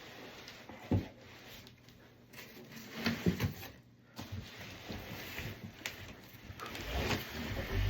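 Handling noise from unpacking a drum: cardboard box and packaging rustling and scraping, with a few short knocks, as a bass drum shell is lifted out of its box.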